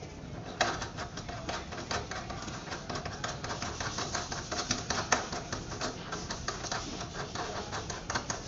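Rapid, irregular clicking and rattling as the mounting fitting on a sensor soap dispenser's shank is worked by hand under the counter. It starts about half a second in.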